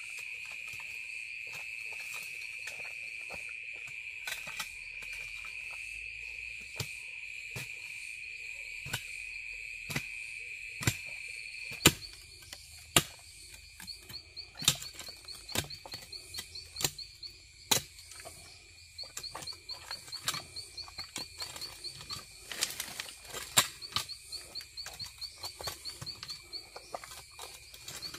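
Hoe blade chopping and scraping into loose clay soil, strikes landing roughly once a second. Behind it a steady high insect buzz fades out about halfway and a fast pulsing insect trill takes over.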